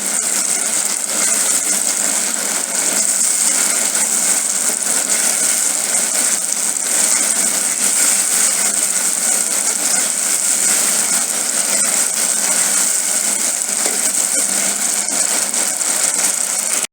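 Tomato, onion and soy sauce mixture sizzling in a hot pan: a steady hiss with fine crackling throughout.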